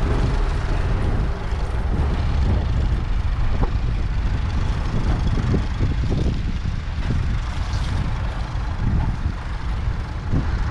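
1978 Ford 2600's 2.6-litre three-cylinder diesel engine idling steadily.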